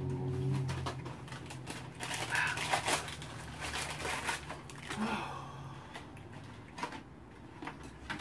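Light clicks and rustles of eating and handling food and utensils at a table, over a low steady hum that stops about six seconds in.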